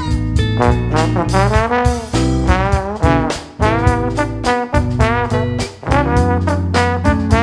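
Trombone playing a melody with sliding, bending notes, backed by bass guitar and a drum kit.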